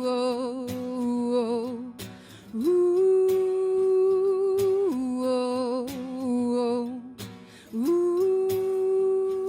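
Slow song intro: a long held melodic note that drops to a lower, wavering note, a figure heard about three times, each roughly two and a half seconds apart, with light strummed or plucked strokes in between.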